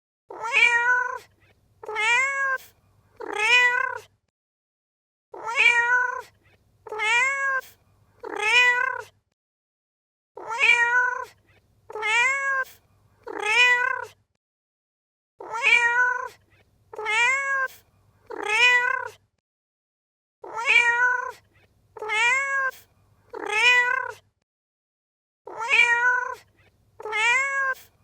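Domestic cat meowing in sets of three, each meow just under a second long, the set repeating evenly about every five seconds with short silences between.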